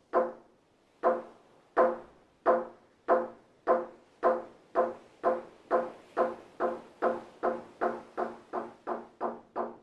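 A wooden semantron, the monastery's struck plank, beaten with a mallet in single pitched knocks that quicken steadily from about one a second to about three a second: the accelerating rhythm of the Orthodox monastic call to prayer.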